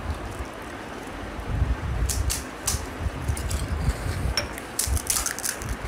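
Crisp golgappa (pani puri) shells being cracked open with the fingers and crunched while eaten: a scatter of sharp crackling clicks, grouped about two seconds in and again near the end, over dull low bumps.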